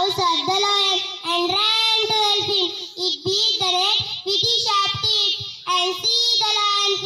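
A young girl singing, a child's voice holding high notes in short phrases with brief gaps between them.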